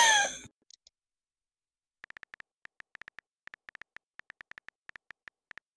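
A loud wail falling in pitch cuts off about half a second in. From about two seconds in comes a quick run of phone keyboard tap clicks as a text message is typed.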